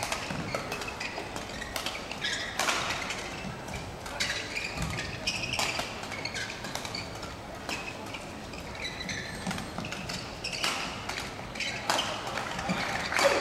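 Badminton rally: rackets striking the shuttlecock in irregular sharp hits, with players moving about the court.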